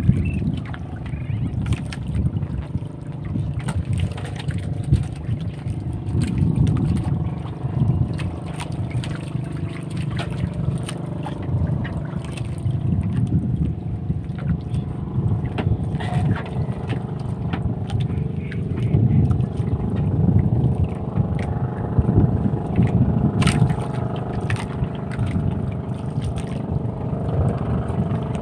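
Boat engine running steadily, a dense low rumble with some knocks and rattles over it.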